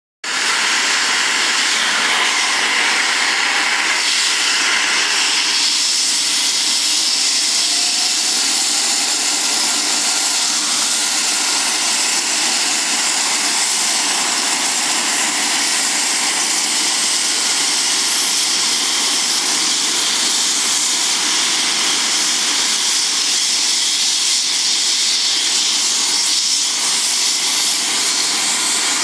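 Eurocopter EC135 air-ambulance helicopter's twin turbine engines running steadily on the ground, a high whine and hiss that holds level while it waits on the helipad before takeoff.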